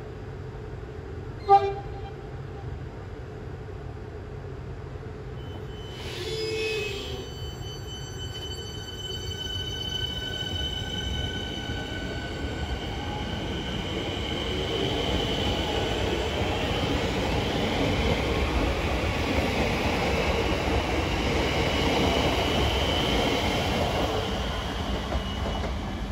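Melbourne suburban electric trains: a short, loud horn toot about a second and a half in, another brief pitched sound around six seconds, then a train running with a steady high whine and rail noise that grows louder toward the end.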